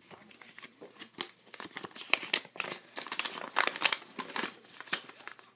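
Paper instruction leaflet being unfolded and handled: a run of irregular crinkles and rustles, denser and louder from about two seconds in.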